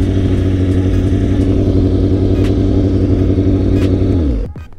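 2004 Kawasaki ZX-6R 636's inline-four engine running steadily at low revs, then switched off about four seconds in, its note sinking as it dies.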